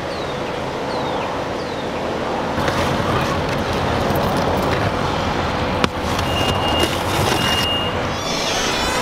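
Steady outdoor vehicle and traffic noise, with a single sharp knock about six seconds in and two short high beeps soon after.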